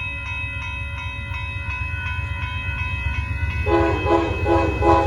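Grade-crossing bell ringing rapidly as the Amtrak Texas Eagle's locomotive approaches, its rumble growing louder. About three and a half seconds in, the locomotive's multi-chime horn sounds four quick short blasts.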